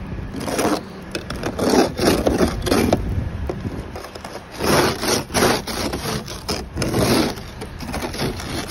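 An ice scraper scraping freezing-rain ice off a car, in repeated short, rough strokes with a pause near the middle. The ice has frozen hard onto the car.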